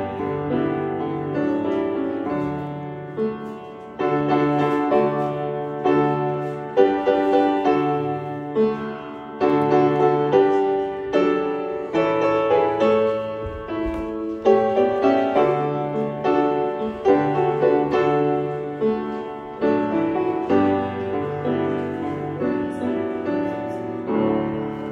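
Upright piano played solo: sustained chords changing about every second over held bass notes.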